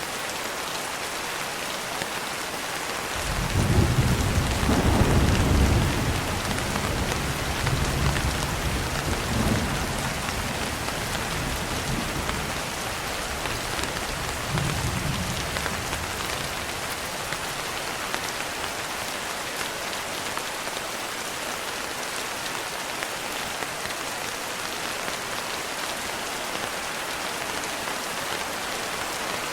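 Steady rain falling on a surface, with a roll of thunder that starts a few seconds in, is loudest for a couple of seconds, then rumbles away in a few fading swells.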